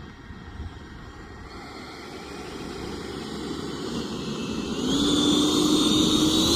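HSDJets Super Viper RC jet's electric ducted fan powering up for takeoff: a rush of air that grows steadily louder, with a whine that rises in pitch over the last couple of seconds.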